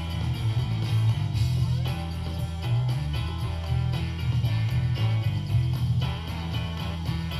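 Background music with guitar and a heavy, pulsing bass line.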